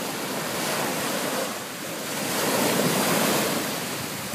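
Ocean surf breaking and washing up over the sand, swelling about two seconds in.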